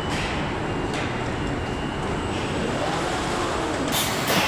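Truck assembly line floor noise: a steady machinery din broken by short, sharp air hisses, one about a second in and two close together near the end.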